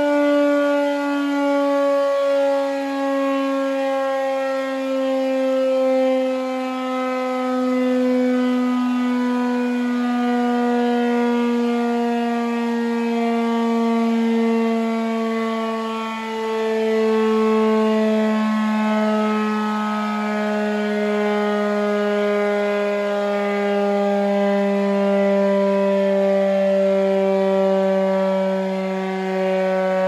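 Air raid siren sounding the 10 pm curfew signal: one long, loud wail with many overtones that slowly falls in pitch.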